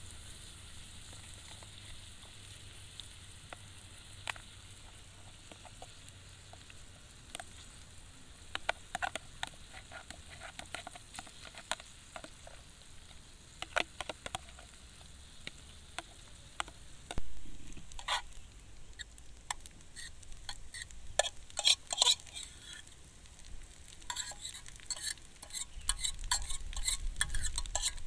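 Fried rice (nasi goreng) sizzling in a pan, with a utensil scraping and clicking against the pan as it is stirred. The stirring strokes become frequent after the first several seconds and busiest near the end.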